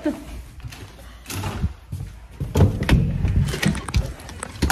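Footsteps and irregular knocks as someone walks down stairs and out of a house, mixed with rubbing and bumping from the phone being handled. The low bumping is heaviest near the middle.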